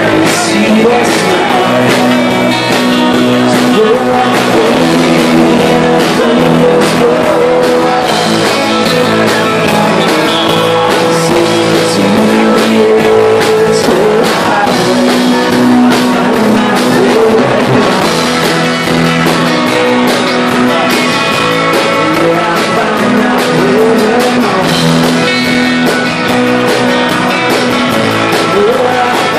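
Loud live rock band playing: electric guitars, electric bass and a drum kit with crashing cymbals, and a lead vocal singing over them.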